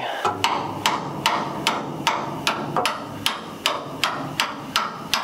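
Hammer tapping a steel bolt through a leaf-spring hanger bracket, a steady run of sharp metal-on-metal taps about two or three a second, driving the bolt into line.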